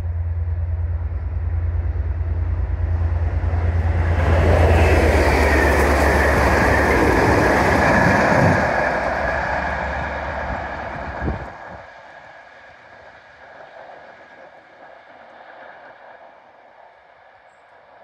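Class 57 diesel locomotive's EMD V12 engine drones as it passes at speed hauling an unpowered Class 47 and two coaches, with wheel rumble and rail clatter swelling to a peak about a third of the way in. The engine drone cuts off abruptly about two-thirds through, leaving a faint rumble fading away as the train recedes.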